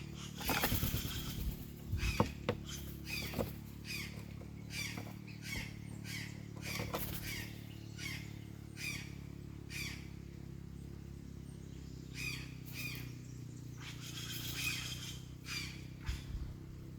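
Small birds chirping with short, repeated high calls, about one or two a second, over a steady low hum. A brief flutter of wings about half a second in.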